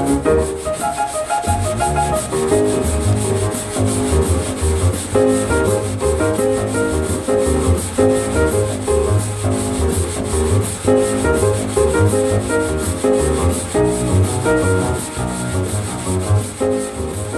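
Drummer playing brushes on a snare drum, a steady swishing rhythm, along with piano and bass playing a jazz tune; the bass line comes in about a second and a half in.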